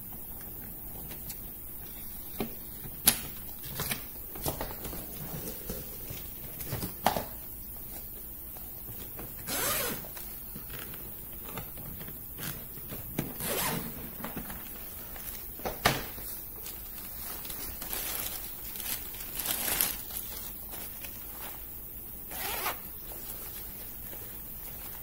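Suitcase zipper pulled in several short runs, mixed with scattered clicks and knocks of the hardside case being handled.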